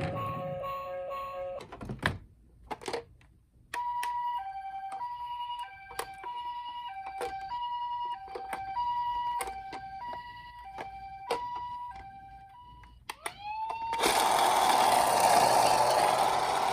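Toy ambulance's electronic two-tone siren sounding the Japanese hi-lo "pee-po" pattern, switching between a higher and a lower pitch about every half second, with plastic clicks and knocks from the toy. Near the end a toy police car's siren glides up in pitch and holds on a louder, rougher wail.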